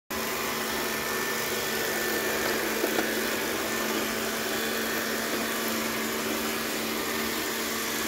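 Robot vacuum cleaner running, its suction fan and brushes giving a steady hum and whir, with a couple of light clicks about three seconds in.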